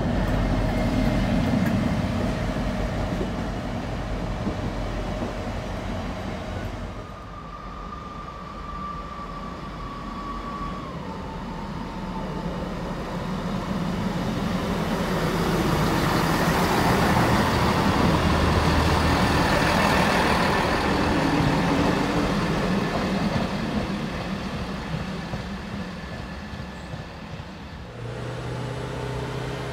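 A GBRf Class 60 diesel locomotive's engine rumbling heavily as it hauls a freight train past. After a cut, a Class 158 diesel multiple unit runs through, loudest in the middle, with a thin whine that drops in pitch beforehand. Near the end a track maintenance machine's diesel engine starts up with a steady note.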